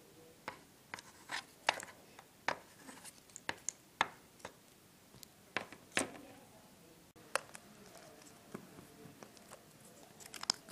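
Irregular sharp clicks and short scratchy rustles of small plastic toy figures and little paper sheets being handled.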